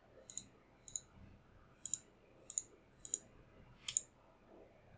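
Computer mouse button clicking: six separate, faint clicks spaced roughly half a second to a second apart.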